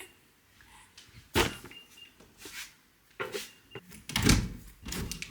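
Four separate knocks and clunks of things being handled, the loudest about four seconds in, another sharp one about a second and a half in.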